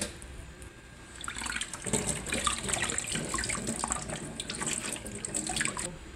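Water pouring and splashing into a basin in a stainless-steel kitchen sink as rinse water is tipped off a plate. It starts about a second in and stops just before the end.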